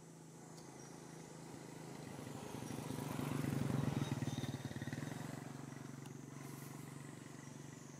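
A motor vehicle engine passing by on the road, growing louder to about halfway, then fading away.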